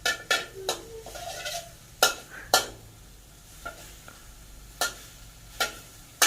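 A metal spatula or spoon stirring food in a pan, knocking against the pan in a series of sharp, irregular clinks that ring briefly.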